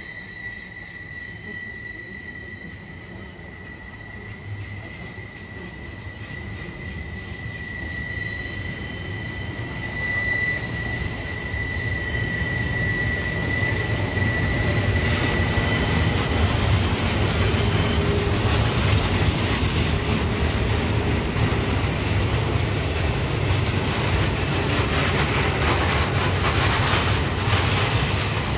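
Union Pacific double-stack intermodal freight train rolling past on curved track: a low rumble of wheels on rail that grows steadily louder, with quick clicking of wheels over the rails in the second half. A steady high squeal, wheel flanges on the curve, fades out about halfway through.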